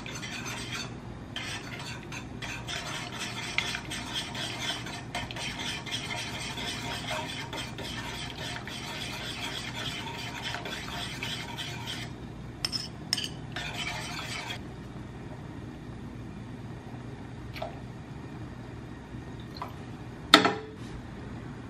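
A utensil stirring and scraping around the inside of a stainless steel saucepan as beaten egg is poured in and mixed so it doesn't clump. The stirring stops about two-thirds of the way through, and a single sharp clink comes near the end.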